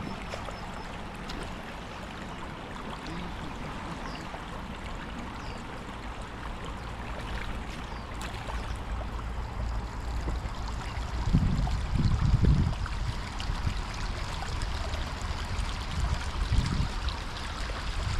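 Shallow river running over stones: a steady rush and trickle of water. Low rumbling bumps come and go about eleven to thirteen seconds in and again near the end.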